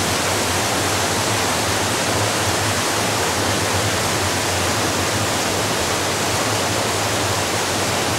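Gorge stream rapids and small cascades of water rushing over layered rock: a loud, steady rush of water.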